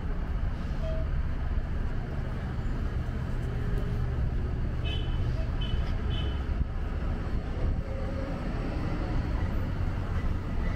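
City street traffic: a steady low engine rumble of passing cars and buses over road noise, with a few brief high chirps about five seconds in.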